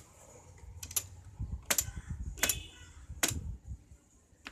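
Piano-key band-selector push buttons on a 1960s Philips valve radio clicking as they are pressed in turn, four sharp clicks under a second apart, with faint handling rumble between them.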